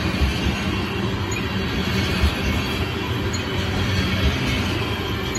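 Loaded-train-style string of steel coal gondola cars rolling past, a steady rumble of steel wheels on rail with irregular clatter from the trucks and couplers.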